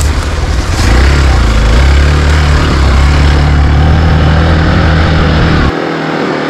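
Hero XPulse 200 single-cylinder motorcycle engine running while riding, with a rush of wind and ride noise over it. The engine sound drops away abruptly near the end.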